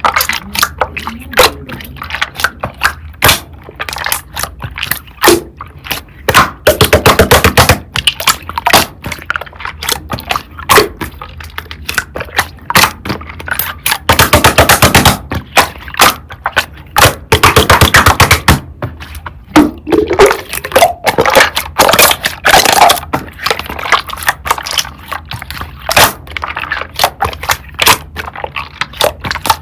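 Slime being pressed and squished by hand, making a run of sharp clicks and pops, with denser bursts of rapid crackling about seven, fourteen and seventeen seconds in.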